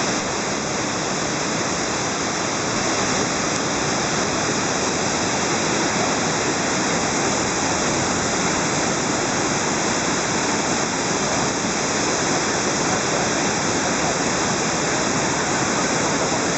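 Waterfall: water falling and splashing in a steady, unbroken noise that holds an even level throughout.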